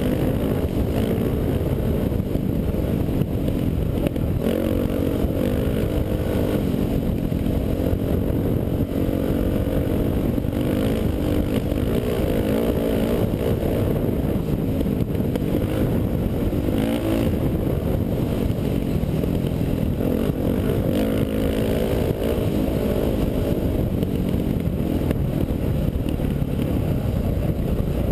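Off-road dirt bike engine running hard on a dirt trail, its pitch rising and falling every few seconds with throttle and gear changes, heard from on the moving bike.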